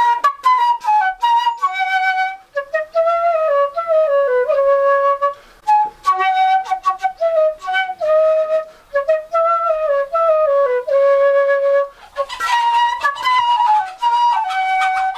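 Handmade bamboo pífano (transverse fife) playing a melody solo, a single line of short notes in phrases with brief breaths between them. About twelve seconds in the tune jumps to a higher, breathier register.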